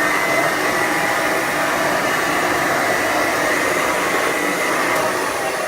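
Hoover model 450 upright vacuum cleaner running steadily on carpet, its 290-watt motor giving a steady high whine over a rushing hiss.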